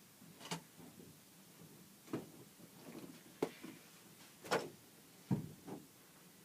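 About six short, irregular knocks and bumps, the loudest two a little after the middle.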